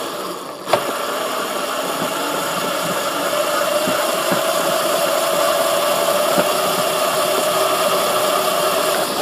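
Razor electric dirt bike running: a steady whine from its electric motor and chain drive that rises slightly in pitch, with a short click about a second in.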